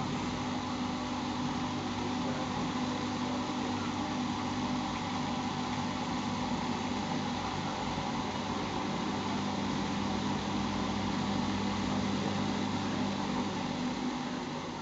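Siemens Siwamat iQ 714 washing machine running: a steady motor hum with a low droning tone, which drops off slightly just before the end.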